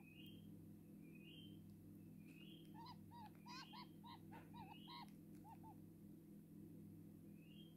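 Faint calls of a baby purple-crested turaco while being hand-fed: from about three seconds in, a quick run of eight or so short arched notes, over a soft rising chirp that repeats about once a second.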